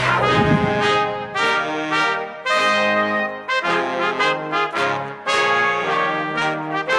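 Theme music led by brass, playing a string of short punchy phrases.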